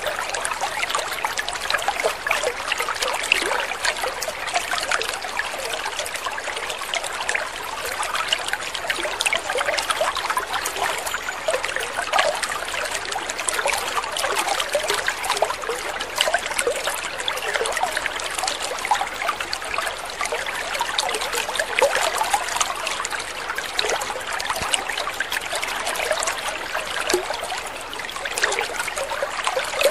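Water trickling and splashing steadily, a continuous bubbling patter with no pauses.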